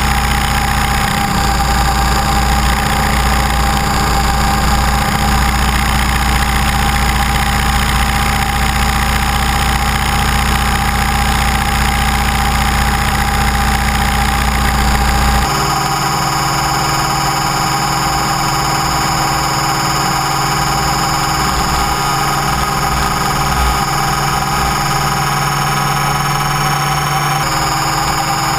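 Onboard sound of an Align T-Rex 550E electric RC helicopter in flight: a steady whine from the motor and drive gears with the rotor's buzz. The tone shifts abruptly a little past halfway and again near the end.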